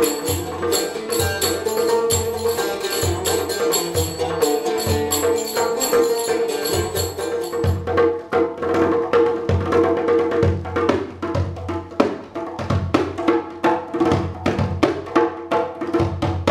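Live acoustic ensemble music: a jingle frame drum (tambourine-type) keeps a steady beat under a sustained melody line. About halfway through, the jingle shimmer falls away and the drum strokes become sharper and busier.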